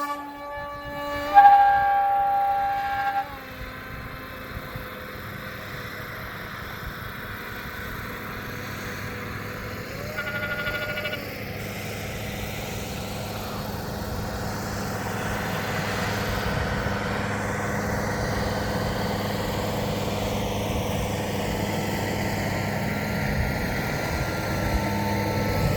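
Ford Bronco making a steady whistling whine over its running drone, with two short, louder horn-like tones, one about a second and a half in and one about ten seconds in. The drone and whine grow slowly louder.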